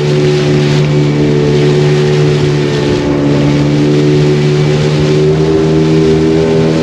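Motor of a long wooden river boat running at speed, a steady drone, with water rushing and splashing along the hull. The engine's pitch rises slightly a little past the middle.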